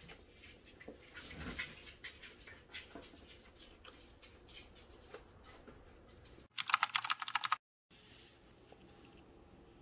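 Chopsticks and spoons clicking lightly against bowls and plates during a meal. About six and a half seconds in, a short, loud burst of rapid clicking lasts about a second and cuts off suddenly.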